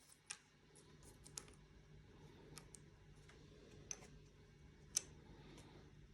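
Near silence with a faint low hum and a few scattered sharp little clicks, about four over the stretch.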